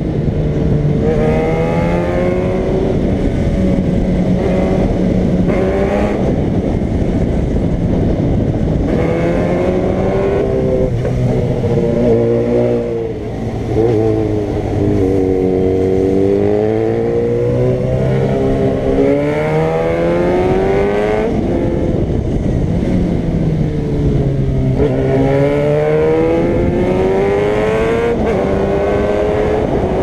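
Motorcycle engine ridden hard, heard from on the bike: the revs climb again and again, each climb broken by a gear change, and the pitch falls as the throttle closes for the bends, with a short easing-off near the middle. The engine sound is mixed with steady wind rush.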